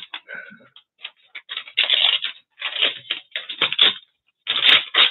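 Paper scraps and magazine cuttings rustling and crinkling as they are rummaged through by hand, in a run of irregular bursts with short pauses between them.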